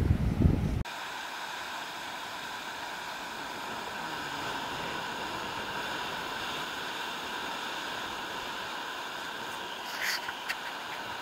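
Wind buffets the microphone briefly, then a steady wash of ocean surf, with a few short clicks about ten seconds in.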